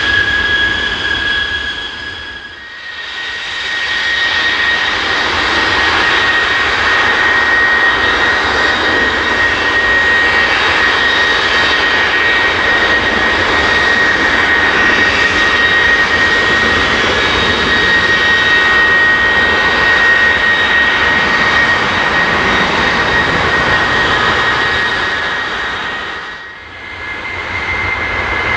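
Boeing 737-800 BBJ2's CFM56-7B turbofan engines running on the ground during an engine test run: a steady jet rush with a high, steady fan whine. The sound briefly drops away about three seconds in and again near the end, and the whine comes back slightly higher in pitch after the second dip.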